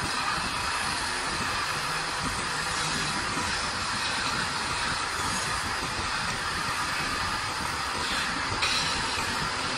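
Belt-driven wood lathe running while a hand-held abrasive is pressed against a spinning wooden plate: a steady, even hiss, turning a little brighter near the end.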